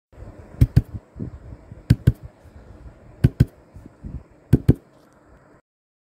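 Intro sound of percussive beats: four double knocks, about one and a third seconds apart, with softer thumps between them over a faint hiss. It cuts off abruptly to silence about five and a half seconds in.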